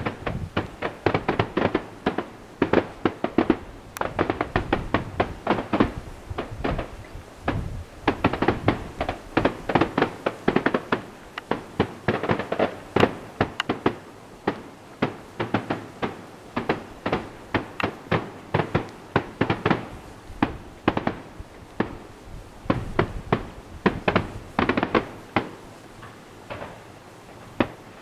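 Fireworks display: aerial shells bursting in a dense run of sharp bangs and crackles, several a second, coming in clusters with brief lulls.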